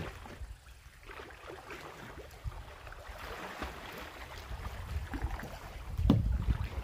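Water splashing and lapping as a canoe is paddled past close by and a swimmer strokes through the lake. Wind buffets the microphone near the end.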